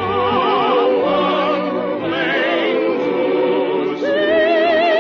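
Operatic singing with wide vibrato over an orchestra. A new long held note begins about four seconds in.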